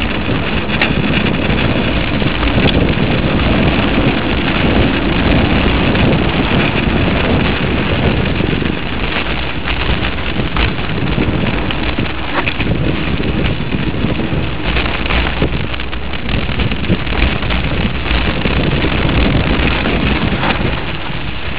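Steady wind noise and rumble buffeting a mini camcorder's microphone, with scattered short knocks.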